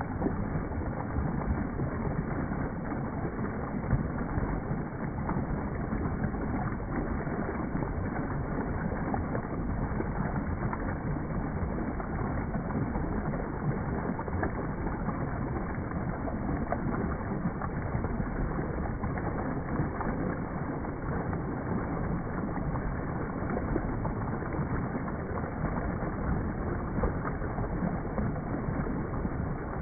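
Water in a pothole, slowed down in slow motion: a steady, low, muffled rushing noise with no clear splashes.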